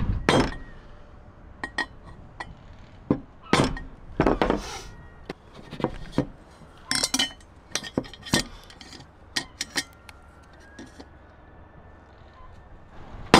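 Irregular metallic clinks and taps as a steel square-section tube and a metal square are handled and set down on wooden boards while the tube is marked out, some sharp and some light.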